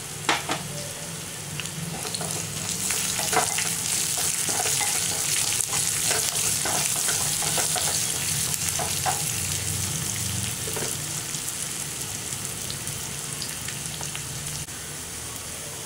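Chopped onions with mustard seeds, dals and peppercorns sizzling in hot oil in a small pan while being stirred with a spatula. The sizzle swells about two and a half seconds in, with occasional short sharp ticks.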